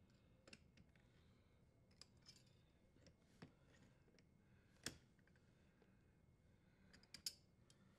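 Faint, scattered clicks of pliers gripping and turning a dishwasher's plastic leveling leg, threading it up into the base to lower the appliance. The loudest click comes about five seconds in.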